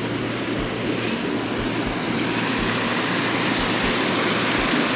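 Mountain creek water rushing over rocky cascades, a steady roar of whitewater that grows gradually louder.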